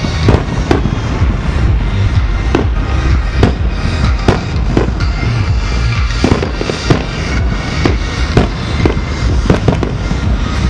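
A fireworks finale: aerial shells bursting in sharp, irregular bangs, about one to two a second, over a continuous low rumble, with music playing along.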